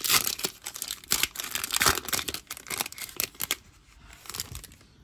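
Foil-lined plastic trading card pack being torn open and crinkled by hand: a dense run of crackling tears and rustles that dies down after about three and a half seconds to light handling.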